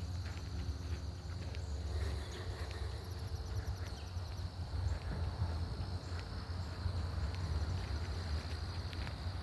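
Footsteps of a walker on a trail, landing irregularly, over a steady high insect drone and a low rumble.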